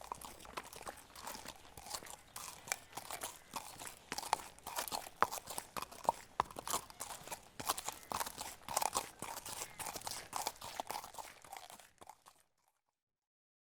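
Hoofbeats of a trotting horse: a quick, uneven run of crunchy clip-clop strikes on the ground that stops abruptly about twelve seconds in.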